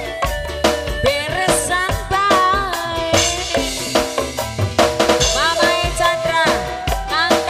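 Singa depok accompaniment music: a busy drum beat with hand-drum and snare-like strokes under a sliding, bending melody line.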